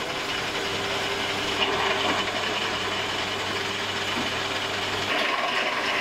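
Raza metal lathe running while its cutting tool turns down a metal shaft, a steady machining noise over the motor's hum. About five seconds in the low hum drops out and the cutting noise gets brighter.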